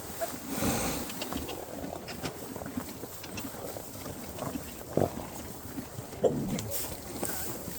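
Farm animals making short noises amid small scuffs and clicks, with two louder short sounds about five and six seconds in.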